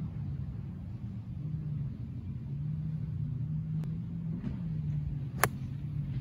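A single sharp click of a 58-degree wedge striking a golf ball off fairway turf, about five and a half seconds in, over a steady low rumble.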